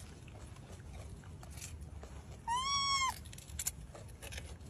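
A macaque's single clear, pitched call, rising then falling in pitch and lasting about half a second, over a faint background hiss with a few light clicks.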